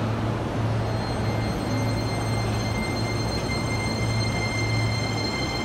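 E231-series electric train pulling away from a standstill: its VVVF traction inverter whines with several steady high tones that come in about a second in and grow louder, over a steady low hum. The pitch stays level here, before the sudden drop that gives this inverter its nickname, the "falling inverter".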